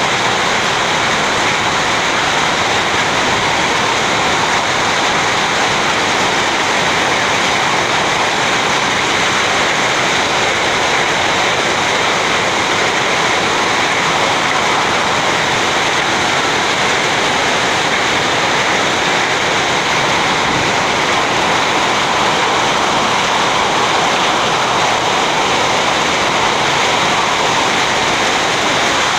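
Heavy rain falling steadily: a loud, constant, even hiss with no breaks.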